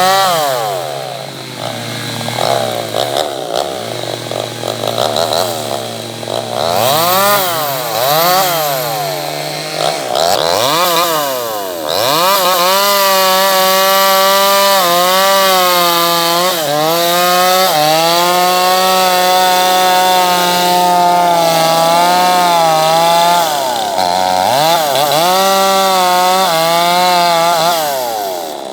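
Two-stroke chainsaw engine settling to idle, blipped up a few times, then held at high revs for about ten seconds with its pitch wavering under load as the chain cuts through wood. It drops back and revs again near the end.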